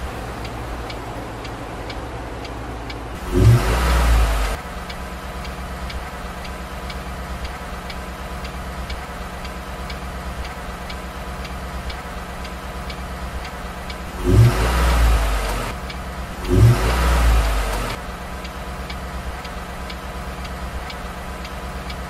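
Small electric drive motor of a 1/32-scale RC car spinning up in three short bursts, each with a quick rising whine, once about three seconds in and twice close together late on. Under the bursts is a steady hum with faint regular ticking.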